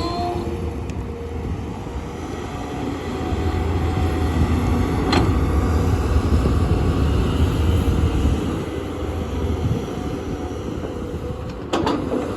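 Tata Hitachi excavator's diesel engine running as a steady heavy rumble that grows louder through the middle. Two sharp knocks come through it, one about five seconds in and one near the end.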